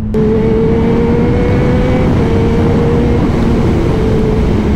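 Kawasaki Z1000 inline-four with an aftermarket full exhaust running at a steady pace while riding, its exhaust note held almost level under loud wind and road rush.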